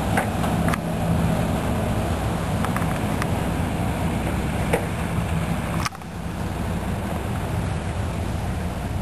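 Ultralight aircraft's propeller engine running steadily at a low idle, with a few faint clicks over it and a brief sudden drop in level about six seconds in.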